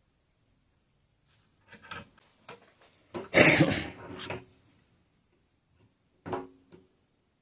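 A pipe vise being handled and worked: a few separate knocks, then a loud rattling, scraping clatter about three seconds in, and two more knocks near the end.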